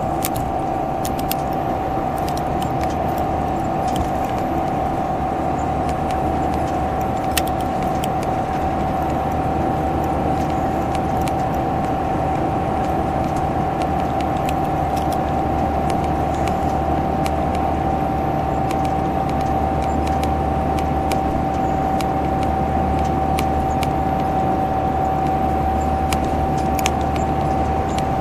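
Salutaris bus number 13500's engine roaring steadily at constant highway speed, with a steady high whine over the low engine drone and scattered small rattles.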